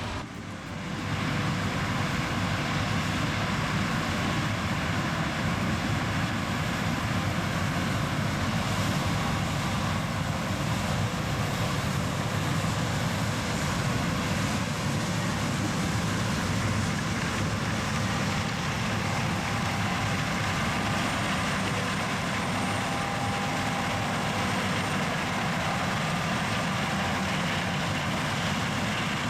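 Heavy diesel farm machinery running steadily under load: a dense, even mechanical noise, heaviest in the low range, that comes up about a second in.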